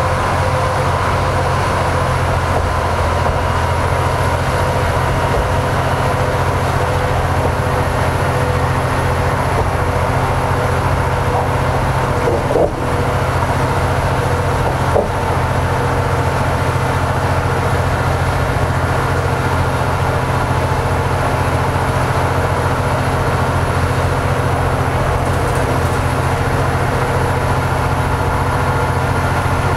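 Cabin noise inside a New Flyer DE60LF hybrid articulated bus under way: a steady low drone from its Caterpillar C-9 diesel and GM-Allison EP50 hybrid drive, with a faint steady whine above it. Two brief knocks about two seconds apart near the middle.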